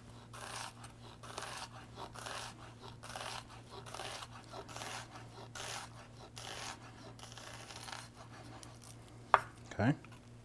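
Chef's knife dicing an onion on a wooden cutting board: crisp slicing cuts through the onion and onto the board at a steady pace of about two to three a second. The cutting stops about eight seconds in, followed by a single sharp tap.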